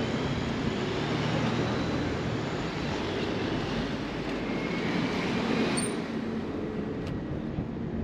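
Steady noise of car traffic passing close by on a road, engines humming and tyres running, with no single event standing out.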